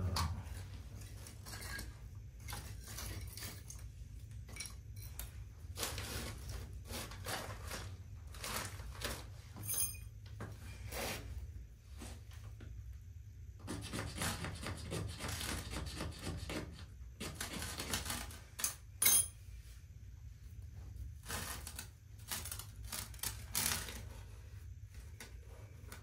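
Hands laying small dry kindling and paper for a wood cooking fire: a run of irregular rustles, cracks and clatters of twigs against metal. There are sharp ringing metallic clinks about ten seconds in and again near nineteen seconds, the second one the loudest, over a steady low rumble.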